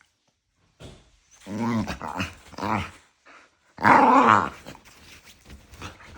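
Small dogs growling and yapping at each other in a play-fight, noisy but not a real fight. Growly bursts come about a second and a half in and again near three seconds, the loudest and longest about four seconds in, then quieter grumbling.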